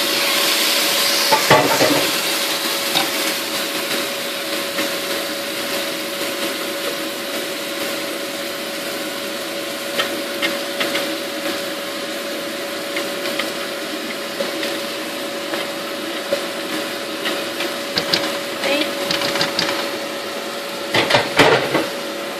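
Puréed tomatoes sizzling in hot oil and fried onion masala in a steel pot as they are scraped in from a plastic food-processor bowl and stirred with a spatula. Under the steady sizzle is a steady hum, with a few scrapes and knocks of the spatula against the bowl and pot.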